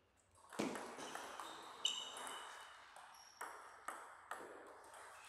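Celluloid-type table tennis ball being struck and bouncing: a heavy thud about half a second in, then sharp clicks of the ball on bat and table, the loudest near two seconds ringing briefly. The last three clicks come closer together as the dead ball bounces to rest.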